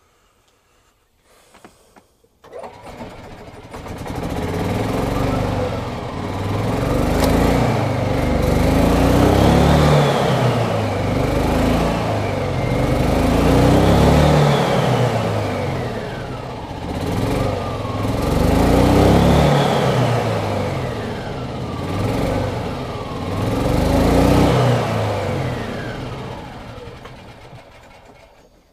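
Yamaha G29 golf cart's single-cylinder four-stroke gas engine starting about two seconds in as the accelerator pedal is pressed, then revving up and down several times with a whine rising and falling in step, and shutting off suddenly at the end. Freshly tuned up with a cleaned carburettor, new spark plug and air filter, it runs a whole lot better than before the tune-up.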